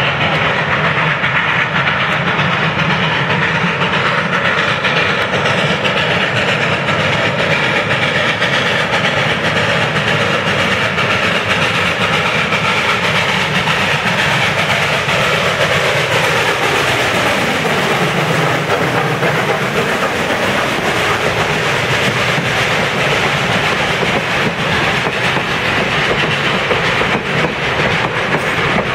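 Steam locomotive pulling a passenger train, approaching and passing close by. Its sound falls in pitch as it goes past about two-thirds of the way in, and then the passenger cars roll by.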